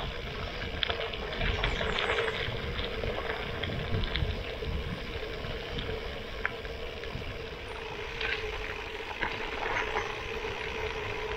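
Gravel bike (Lauf Anywhere) rolling fast over a dirt and gravel road: the tyres crunch and crackle continuously with scattered small clicks and rattles, over a low wind rumble and a faint steady hum.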